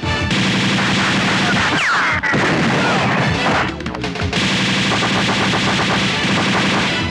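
Rapid gunfire from a film shootout, dense volleys of shots over an action-music score.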